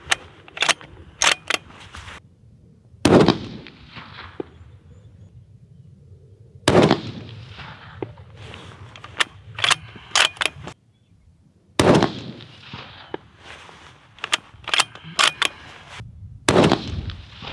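Four rifle shots from a bolt-action Accuracy International precision rifle fired prone, spaced about four to five seconds apart, each trailing off in a rolling echo. Between the shots come quick clusters of sharp clicks from the bolt being cycled.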